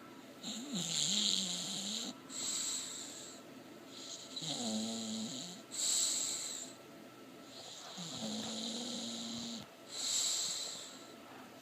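English bulldog snoring in its sleep: three low, pitched snores, each followed by a hissing breath, in a slow rhythm of about one cycle every three to four seconds.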